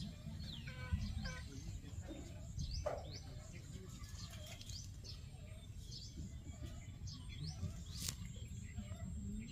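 Small birds chirping, many short high calls in quick succession, over a low background rumble.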